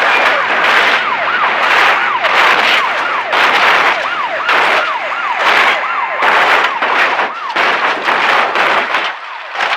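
Police car siren in a fast yelp, its pitch sweeping up and down about twice a second over a loud, pulsing rush of noise. It cuts off abruptly near the end.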